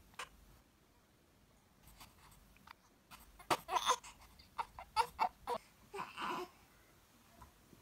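Young baby fussing: a string of short cries, starting about three and a half seconds in.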